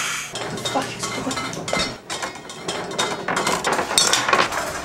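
Kitchen utensils and dishes clattering: a rapid, uneven run of clinks and knocks.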